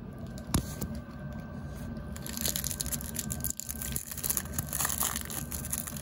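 Plastic film wrapper of a Calgon water-softener tablet crinkling and crackling as it is torn open and the tablet is unwrapped over the washing machine's detergent drawer, the crackling thickening after about two seconds. A steady low hum runs underneath.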